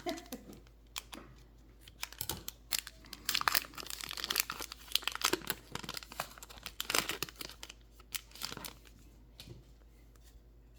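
A 2023-24 Upper Deck Artifacts hockey card pack being torn open and its wrapper crinkled, with cards handled, in irregular crackling bursts that thin out over the last couple of seconds.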